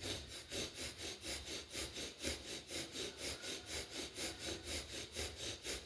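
Rapid, forceful breathing in and out through both nostrils, the bellows breath of bhastrika pranayama: an even run of puffs of air at about three a second.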